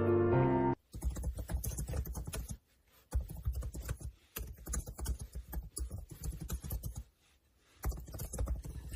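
Music stops about a second in. After it comes irregular crackling and rustling in several stretches, with short breaks between them.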